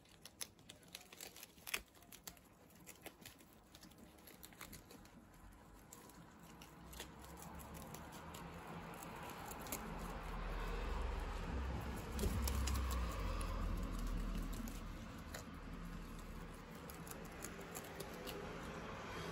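Guinea pigs munching lettuce: a quick run of crisp crunching clicks as they bite and chew the leaves, with leaves and bedding rustling. In the second half a low background rumble rises under the chewing.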